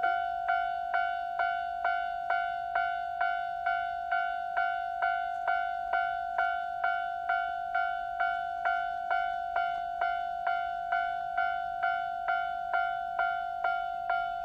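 Japanese railway level-crossing warning bell ringing in an even rhythm, a little over two strikes a second, each strike ringing on and fading before the next. It signals that a train is approaching the crossing.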